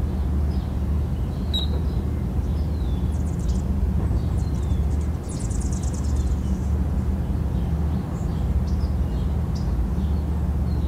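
Birds chirping, short calls with a quick trill about halfway through, over a steady low rumble.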